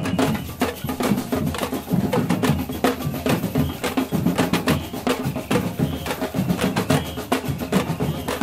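Street batucada: bass drums beaten with mallets and many sticks clattering on handheld plastic lids and containers, playing a fast, steady rhythm.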